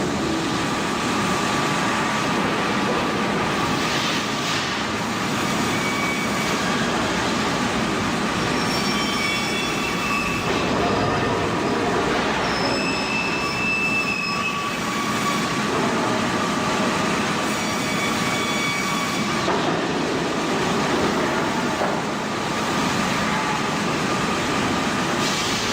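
Industrial wood-sawing machinery running steadily, with high whining saw tones that come and go several times.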